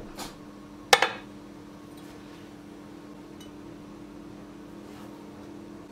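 A single sharp clink about a second in: a metal serving utensil knocking against a ceramic plate as a dessert roll is lifted onto it, with a few faint taps later and a low steady hum underneath.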